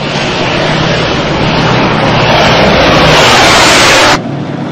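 Tank engines roaring as tanks pass close by, the noise growing louder and then cutting off abruptly about four seconds in, leaving a quieter engine behind.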